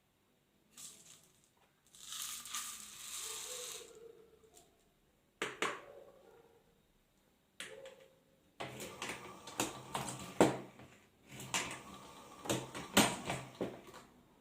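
MEC Sizemaster shotshell reloading press being worked on a 12-gauge shell. A rushing hiss comes about two seconds in and lasts about two seconds, then single metal clicks, then a busy run of clicks, clacks and rattles in the last five seconds.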